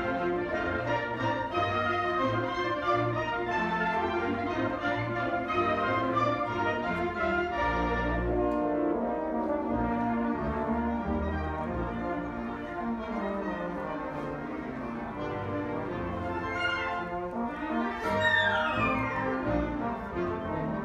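Orchestral background music with brass, French horn to the fore.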